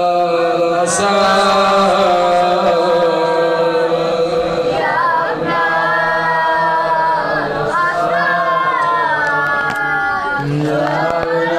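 A man's voice singing a Persian noha, a Shia mourning lament, in long drawn-out phrases whose pitch slides and bends.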